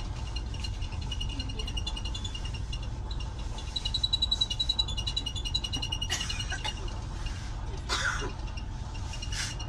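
Steady low rumble of a moving passenger train carriage, with a rapid high-pitched pulsing chirp that swells about four seconds in, and three short breathy noises near the end.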